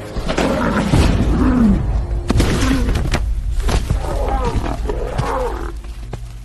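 Predatory animals growling and snarling in a series of rough, pitch-bending calls, with a few sharp knocks among them.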